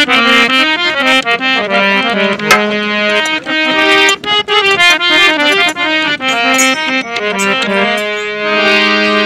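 Harmonium playing an instrumental melody in quick, changing notes, with a longer held low note near the end, under sharp strokes from a dholak hand drum.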